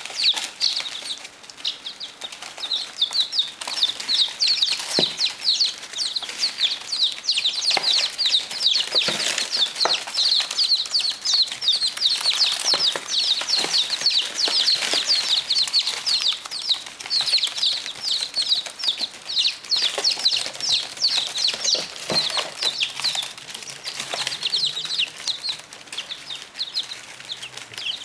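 A brood of baby chickens peeping constantly: many short, high, falling chirps that overlap without a break. Scattered sharp taps and clicks run underneath.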